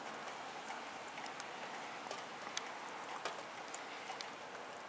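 Steady rain falling, a soft even hiss with scattered drops ticking.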